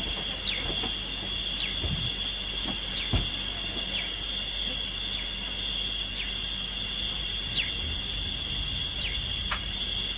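Natural outdoor ambience: a steady, high-pitched insect drone, with a bird giving short falling calls every second or so, and a single low thump about three seconds in.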